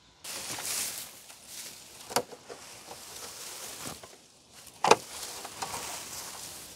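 Dry grass rustling and crackling as a person tramples it and pulls it away by hand, with two sharp cracks, one about two seconds in and a louder one near five seconds.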